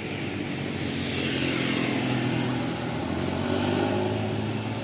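A road vehicle's engine passing close by, its steady hum growing louder about a second in, peaking near the end and then easing off.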